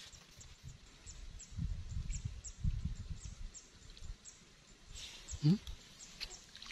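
Marsh ambience: short high chirps repeating two or three times a second over a low rumble, with a brief low sound rising in pitch about five and a half seconds in.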